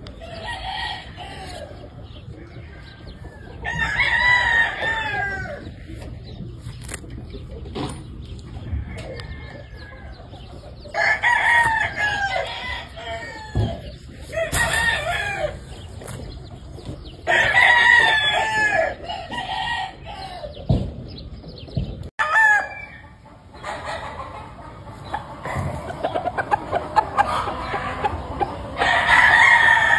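Game chickens: roosters crowing again and again, one crow every few seconds, with hens clucking between the crows.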